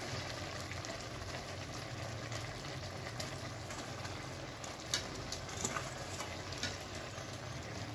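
Steady low hiss of Maggi noodles simmering in a steel kadai on a gas stove, with a few faint taps as fried paneer cubes are dropped into the pan.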